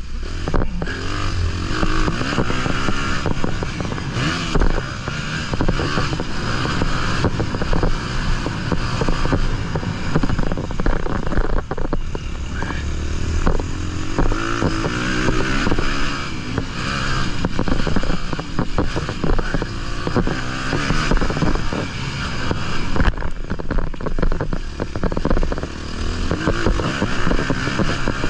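Honda 250 motocross bike's engine heard from on board, revving up and down as it is ridden around a dirt track, under wind rush and the clatter of the bike over the bumps.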